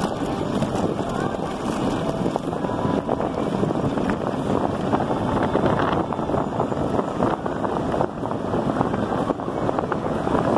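Riding noise from an electric bike on a gravel road: wind buffeting the on-board microphone and the tyres crunching and rattling over the loose surface, steady throughout.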